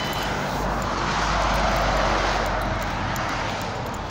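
A road vehicle passing by, its engine and tyre noise swelling to a peak about a second and a half in and then fading.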